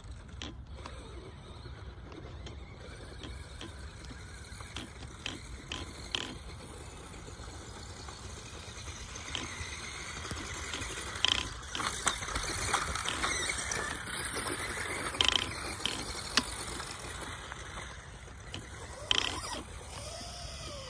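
Two stock Tamiya Grasshopper RC buggies driving on a dirt track: electric motors and gearboxes whine up and down with the throttle, loudest around the middle. Several sharp clattering knocks come as the buggies hop and land.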